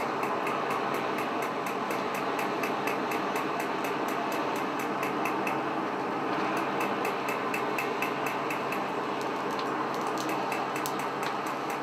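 Steady hum and whirr of the forge's small electric blower driving air into the charcoal fire, with rapid, even ticking at about five a second that pauses briefly around the middle.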